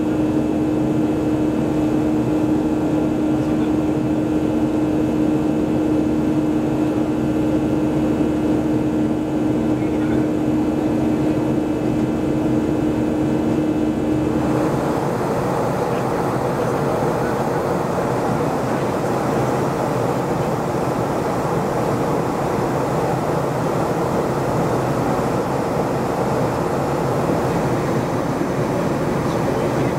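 Boeing 737-300 cabin noise in flight: the CFM56 jet engines and airflow make a steady drone. For the first half a steady hum runs through it. About halfway through the sound changes abruptly to a broader, hissier rush.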